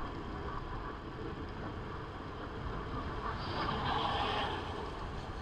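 Steady road and wind noise of a motorcycle under way, with a louder rushing stretch about three and a half seconds in that fades after about a second.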